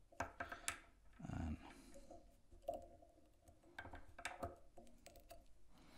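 Faint scattered clicks and soft rustles of fly-tying handwork: tying thread being wrapped on the hook at the vise and the bobbin handled. A soft low sound comes about a second and a half in.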